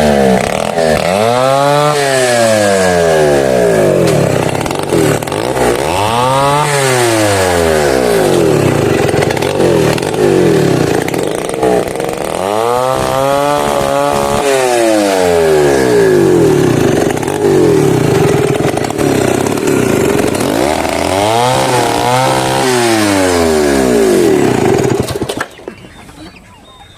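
Chainsaw running at high speed, cutting into a mahogany tree, its engine pitch rising and falling four times. The saw stops abruptly near the end.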